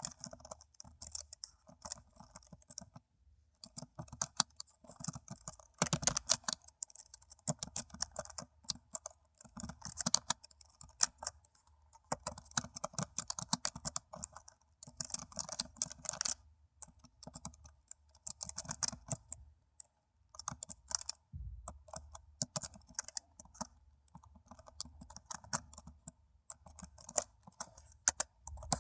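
Typing on a laptop keyboard: rapid key clicks in bursts of a second or two, broken by short pauses.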